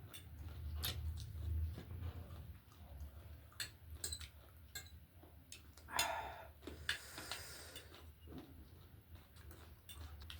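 Quiet eating sounds: scattered light clicks of cutlery on dishes and chewing, over a steady low hum, with one short louder sound about six seconds in.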